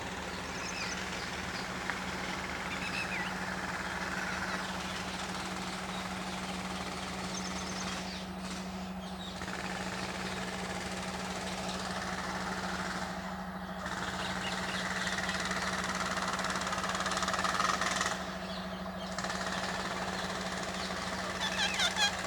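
Rose-ringed parakeets giving short shrill calls, with a quick run of louder screeches near the end, over a steady low drone of a running engine or motor.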